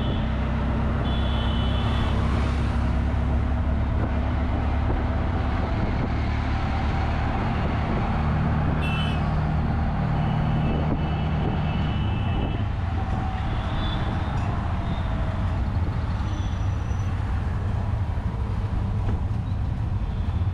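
An auto rickshaw's engine runs with a steady low drone under road noise as it drives through traffic. Short high horn beeps sound several times, about a second in and again around the middle.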